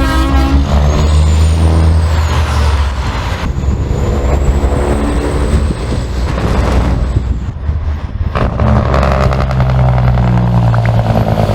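Truck engine running while driving: a steady low drone, with a faint high whine above it. The engine note drops away briefly about eight seconds in, then picks up again.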